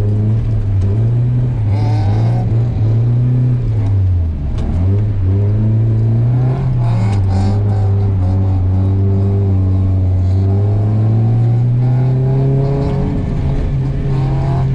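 Nissan S15 Silvia's engine heard from inside the cabin while it is driven hard, its pitch rising and falling with the throttle. The revs drop sharply about four seconds in, pick up again, hold steady for a few seconds, then climb again near the end.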